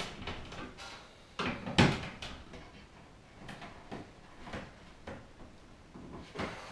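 Irregular knocks, clicks and short scrapes from a flush-mount ceiling light fixture and screwdriver being handled while the fixture is fitted to its ceiling mount. The loudest is a scrape ending in a sharp knock a little under two seconds in.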